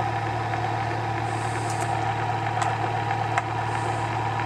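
Bedini SSG pulse motor running steadily, its rotor wheel spinning past the coil as the transistor circuit pulses it: a steady hum with a few faint ticks.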